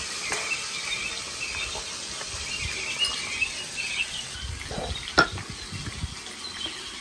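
Fingers scraping wet ground spice paste off a stone grinding slab and into a small steel bowl, with small clinks of the bowl and one sharp clink about five seconds in. Birds chirp throughout.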